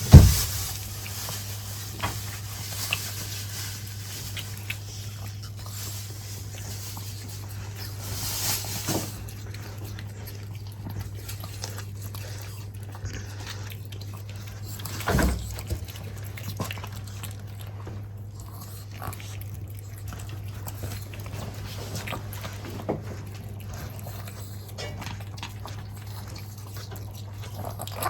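A dog eating, with scattered short crunches and chewing sounds over a steady low hum.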